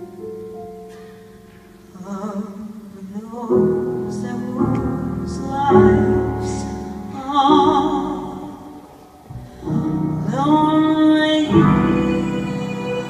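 A woman singing a slow jazz ballad with wide vibrato over piano accompaniment, ending on a long held note.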